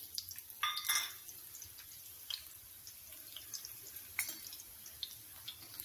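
Raw onion wedges frying in hot oil in a pan: a faint, soft sizzle with scattered small pops, and a brief louder sound a little under a second in.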